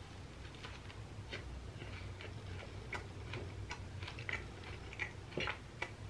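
Close chewing of a mouthful of burger with a ground-seafood patty: irregular crunching clicks, several a second, as bits of crab shell left in the patty break between the teeth.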